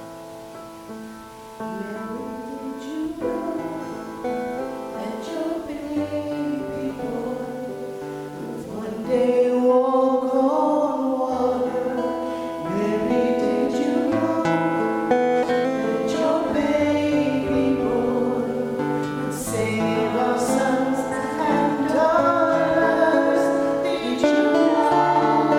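Live worship music: a band playing a song with voices singing, growing louder about nine seconds in.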